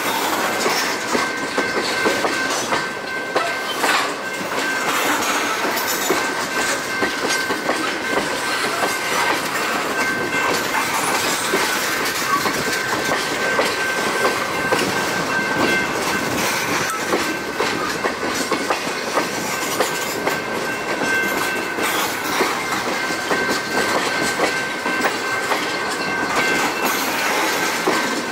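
Railroad tank cars rolling past at close range: steel wheels clicking over the rail joints under a steady rolling rumble, with a thin steady high-pitched tone over it.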